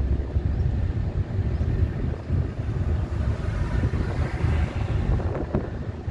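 Steady low rumble of road, tyre and engine noise inside a Suzuki car's cabin while cruising on a highway.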